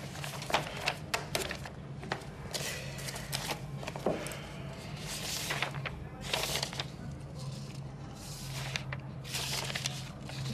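Sheets of paper rustling and being handled, with scattered light clicks and taps, over a low steady hum.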